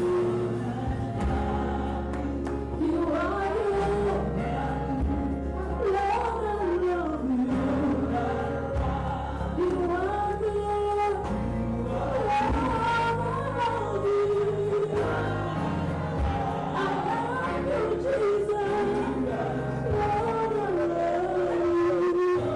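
Gospel worship song: voices singing a flowing melody over held low chords from a keyboard or bass.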